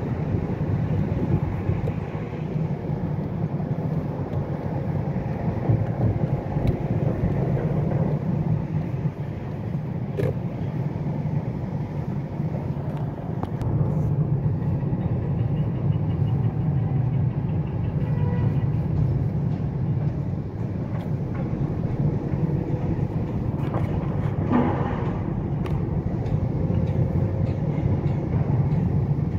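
Car driving on a city street, heard from inside the cabin: a steady low rumble of engine and tyre noise.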